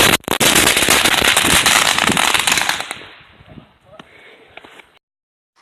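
Fireworks going off in a rapid, dense crackle of small bangs, the string fading out about three seconds in with a few scattered pops after.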